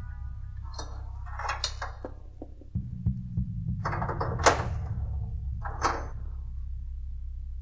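Handling noise from a camcorder on a tripod: a few clicks, scrapes and knocks as the camera is adjusted and its cable plugged into a monitor, the sharpest about four and a half seconds in. A low steady drone sits beneath.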